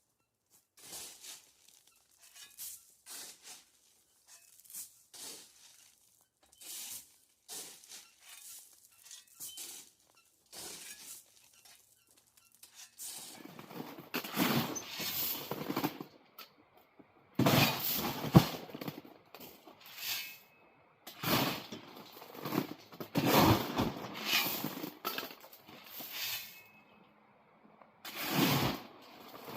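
Steel shovel working crushed-stone ballast: a run of short gritty scrapes and rattles of stone, then louder, longer crunching scoops and dumps from about halfway through.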